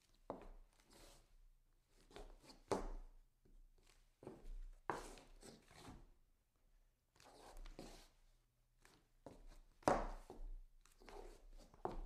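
Footsteps scuffing and turning around on a wooden floor: irregular short scrapes and knocks, about one or two a second with brief pauses. The sharpest knock comes about ten seconds in.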